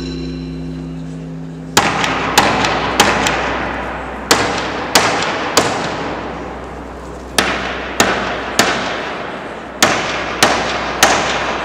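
Wooden mallet striking a long black box: sharp knocks about two-thirds of a second apart, a group of four followed by three groups of three, each leaving a long echo in a large hall.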